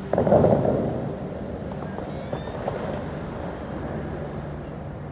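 Bellagio fountain's final burst of water jets: a sudden loud rush of water that dies away within about a second as the spray falls back into the lake. A steady background hum is left after it.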